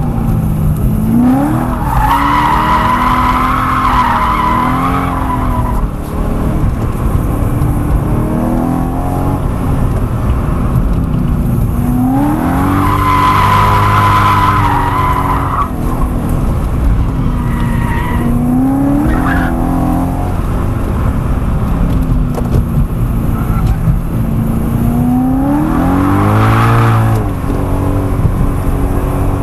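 A 2011 BMW M3's 4.0-litre V8 revving up and down under hard cornering, with the tyres squealing in long stretches about two, thirteen and twenty-six seconds in as the car slides into oversteer.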